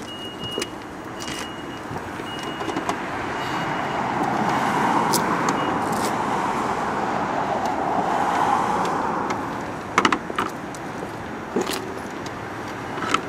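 A car driving past, its noise swelling over a few seconds and then fading away. This is followed by a few sharp clicks and knocks of the metal dealer plate being handled and fitted to the car's rear.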